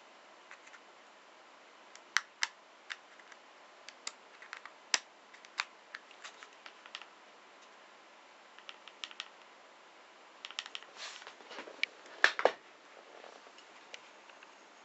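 Scattered sharp plastic clicks and taps as a spinning-butterfly cat toy is handled. A denser run of knocks comes about twelve seconds in, the loudest as the toy is set down on the wooden floor.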